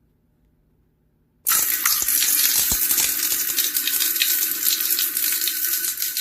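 Shower running: water spraying in a steady hiss that starts suddenly about a second and a half in.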